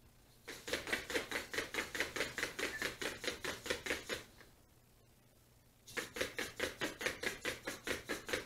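XGO Lite robot dog's servo-driven legs stepping quickly on a hardwood floor: a fast, even run of taps, about seven a second, for nearly four seconds, then a pause, then a second run of about three seconds.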